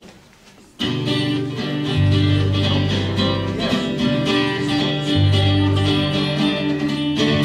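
A small live band starts playing a country-gospel song about a second in. Strummed guitars over sustained electric-bass notes, with no singing yet.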